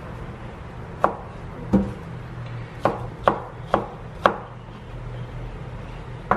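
Kitchen knife chopping ripe jackfruit bulbs on a plastic cutting board: about seven sharp knocks of the blade striking the board, irregularly spaced, most of them bunched in the middle of the stretch.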